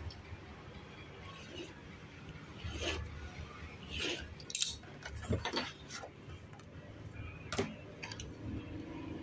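Steel ruler being laid down and shifted over sheets of card and a cutting mat: a handful of light metal clicks and knocks with brief scraping of paper in the middle.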